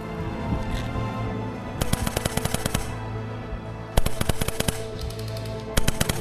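Airsoft gun firing rapid full-auto bursts: three strings of fast clicking shots, the first about a second long starting about two seconds in, a shorter one about four seconds in, and a brief one near the end.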